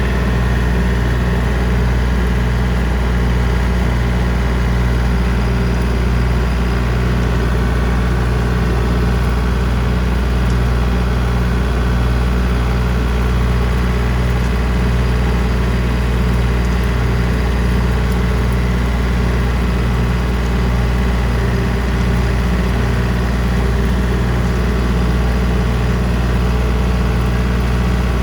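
John Deere 3025D compact tractor's three-cylinder diesel engine running steadily while driving a rotary cutter (brush hog), moving slowly in first gear low range. The loud, even drone holds without change.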